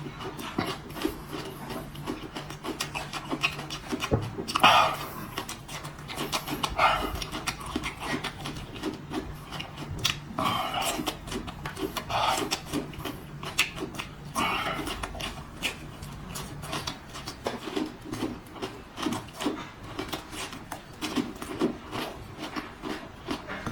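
A person chewing and eating close to the microphone: a steady run of small wet mouth clicks and smacks, with about five louder bites or slurps spaced a few seconds apart.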